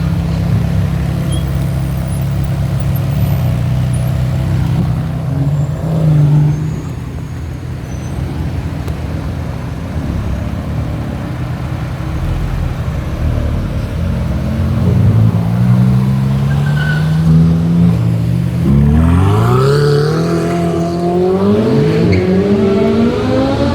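Ferrari engines and exhausts running at low revs, then in the second half an engine revving and accelerating hard, its pitch climbing in repeated sweeps and dropping between them as it shifts up through the gears.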